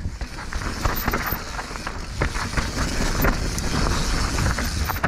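Mountain bike descending a rough dirt trail: tyres running over the ground and the bike rattling with many short knocks and clicks, over a steady low rumble of wind on the microphone.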